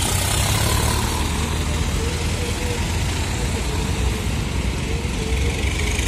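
Farm tractors' diesel engines running with a steady low rumble as the tractors drive past along a road.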